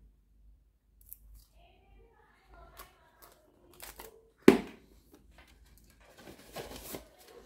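Cardboard box being handled and moved over a tray of wristwatches: faint rustling and scraping, one sharp knock about four and a half seconds in, then a burst of rustling and scraping near the end.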